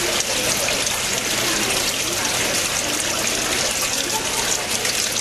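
Four-storey indoor atrium waterfall, water falling and splashing in a steady, unbroken rush.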